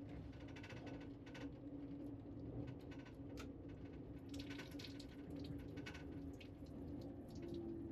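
Wall-mounted tap running a thin stream into a washbasin, water trickling and splashing, over a steady low hum.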